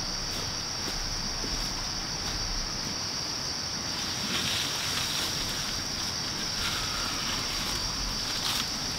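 Stream water running steadily, with a constant high-pitched whine and a couple of faint clatters of boards being handled.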